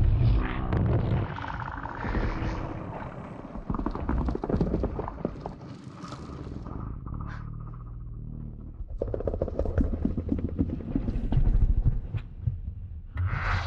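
Mothra creature sound effects: a low rumble under dense, rapid clicking or fluttering that eases off midway and swells again, with a brighter, higher call starting near the end.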